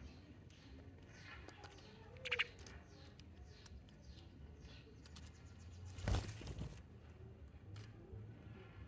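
Sparrows chirping at a bird feeder: many short, quick falling chirps, with a louder burst of calls a little over two seconds in. About six seconds in comes a brief loud rustle.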